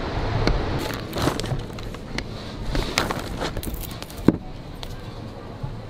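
Handling noise: rustles and scattered short knocks over a steady background hiss, with the loudest knock about four seconds in, as a bunch of bananas is picked from a produce display.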